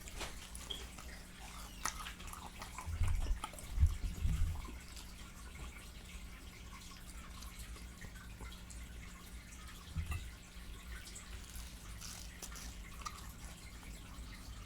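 Close-miked wet chewing and mouth smacking while eating fried chicken, with scattered short wet clicks and a few louder low thumps.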